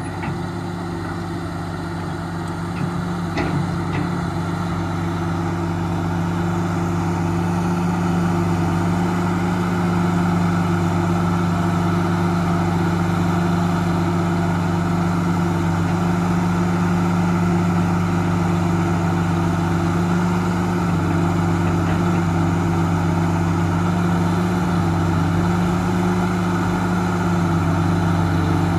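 Caterpillar 330B excavator's six-cylinder diesel engine running steadily while the boom and bucket are worked. It grows louder over the first several seconds, then holds an even note.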